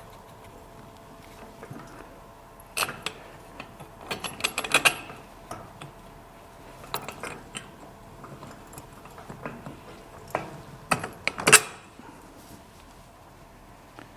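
Metal garden-cart parts clinking and knocking in irregular clusters as the handle and its axle are worked into place. There are sharp clanks about 3 and 5 seconds in, and the loudest comes near the end.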